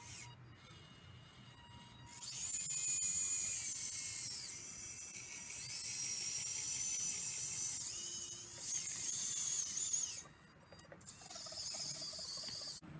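Radio-controlled Schaeff HR16 scale excavator's hydraulic pump, whining high and hissy as the boom and arm move, its pitch dipping and rising with the load. It starts about two seconds in, cuts out briefly near ten seconds, then runs again until it stops just before the end.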